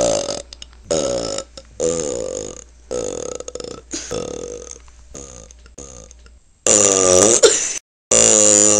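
A person belching over and over in quick succession: about seven short burps that grow fainter, then a louder burp near the end whose pitch bends, and a long steady-pitched belch that starts just before the end.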